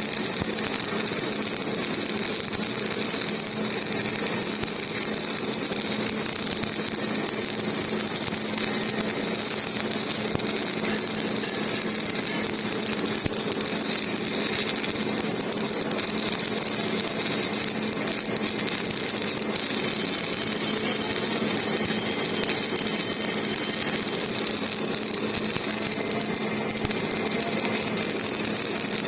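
Electric arc welding: a steady hiss with fine crackle over a constant low hum.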